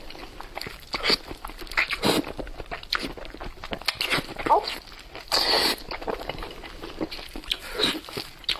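Close-miked eating sounds of spicy Korean food: irregular biting, crunching and wet chewing, with a louder, longer noisy burst a little past halfway.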